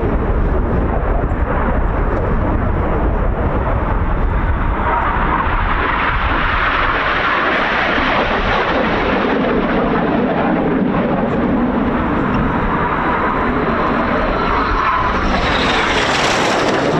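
The Red Arrows' BAE Hawk T1 jets flying past with a loud, steady jet noise that sweeps slowly in pitch. Near the end the sound grows brighter and sharper as one passes close by.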